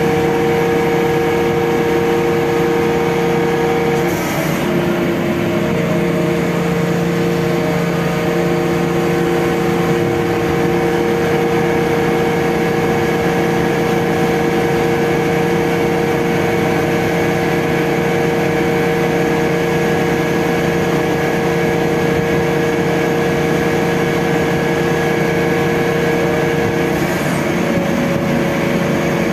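Truck-mounted mobile crane's diesel engine running steadily with a held whine, its pitch shifting briefly about four seconds in and again near the end as the engine speed changes.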